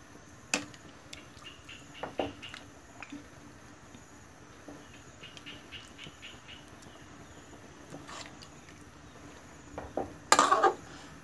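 Metal ladle stirring a metal cooking pot of bamboo-shoot curry, clinking and scraping against the pot now and then, with a louder knock near the end.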